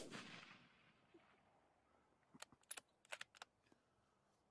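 The echo of a gunshot fired at a bobcat dying away in the first half second, then a few faint, sharp clicks about two and a half to three and a half seconds in.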